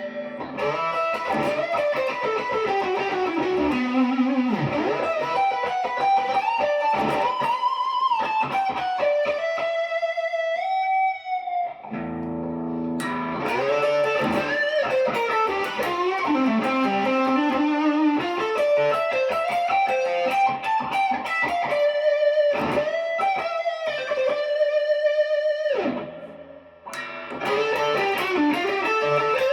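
PRS Special Semi-Hollow electric guitar played as a melodic lead line. Many notes bend and slide in pitch, and the playing briefly drops away near the end.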